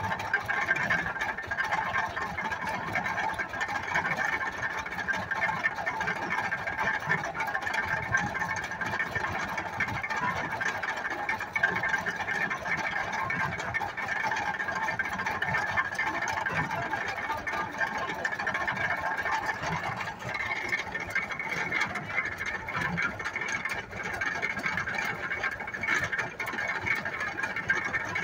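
Vintage belt-driven stationary baler running while baling straw: a steady mechanical clatter and rattle with irregular low knocks underneath.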